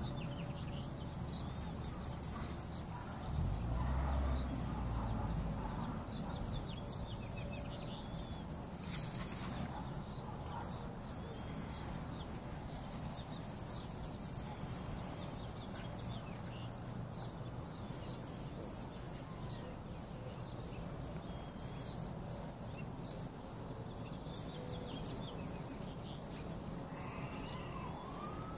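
A cricket chirping steadily, a regular run of short high chirps at about two to three a second.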